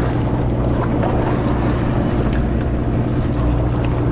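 Sportfishing boat's engine running with a steady low drone.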